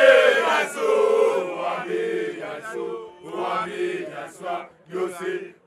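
A group of men's voices chanting together in short sung phrases, with brief breaks between them.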